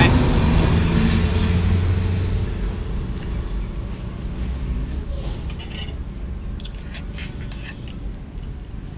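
A motor vehicle's engine passing close by and fading away over the first two or three seconds, leaving a low traffic hum. Later there are a few light clicks of cutlery against plates.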